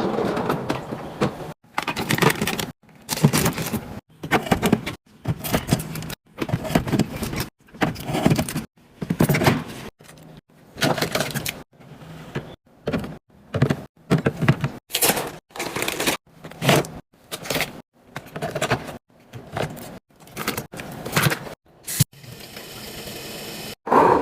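A quick run of short, abruptly cut clips of fridge restocking: bottles, jars and plastic containers clinking, rattling and being set down, with packaging handled between them. Near the end comes a brief steadier hiss.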